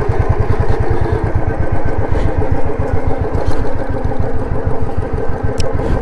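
Royal Enfield Bullet 350's single-cylinder engine running at low speed off-road, a steady rapid thump of even pulses.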